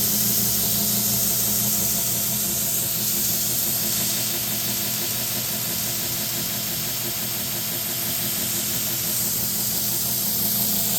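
Torus CNC M-90-AL 2x72 belt grinder running steadily with no work on the belt: a constant motor hum under an even hiss from the belt.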